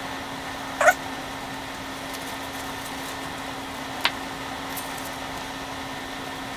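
A short, rising animal call about a second in, over a steady low hum, with a faint click around four seconds in.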